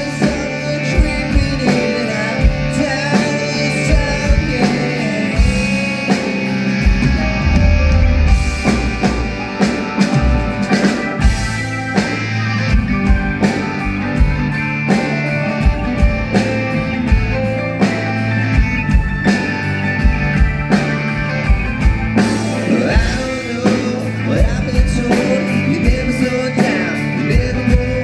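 Live band playing a pop-rock song at a sound check, with drum kit, bass and electric guitar and a steady beat, and possibly a vocal line.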